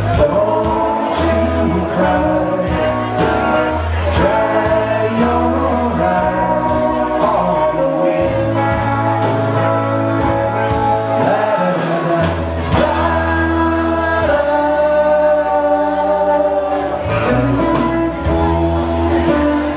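Live rock band playing with sung vocals, in a room that echoes like a hall.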